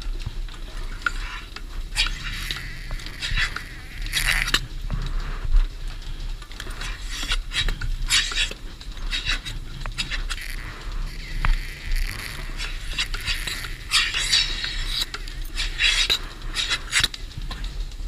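Milking-machine clusters handled and attached to cows: the teat cups and claws clink and clatter, with short bursts of hissing as the vacuum draws air through open teat cups. A steady low hum runs underneath.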